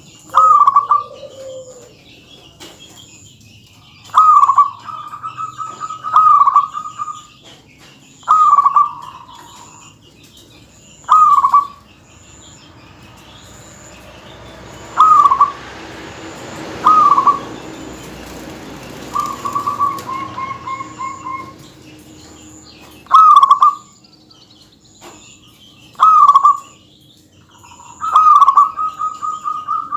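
Zebra dove (perkutut) cooing over and over, a short bright rolling coo every two to three seconds, some ending in a quick run of repeated notes.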